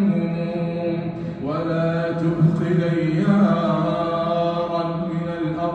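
A man chanting a verse of Arabic poetry in long, drawn-out notes, with a new phrase beginning about a second and a half in.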